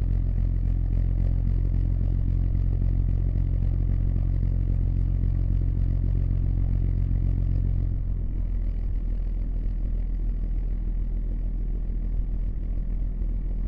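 Diesel engine running steadily with a deep, even note. About eight seconds in, the sound becomes slightly quieter and less even.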